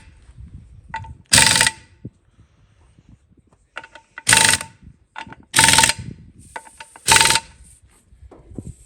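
Impact wrench fired in four short bursts, each under half a second, snugging the wheel nuts on a Ford 9N tractor's wheel hub a little at a time rather than forcing them tight.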